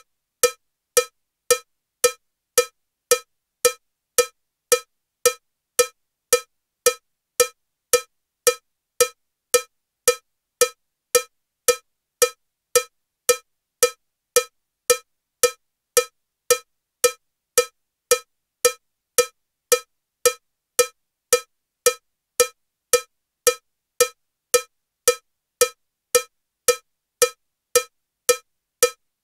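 Metronome set to a cowbell sound, ticking at 112 beats per minute: short, evenly spaced cowbell strikes, just under two a second, all at the same loudness and pitch.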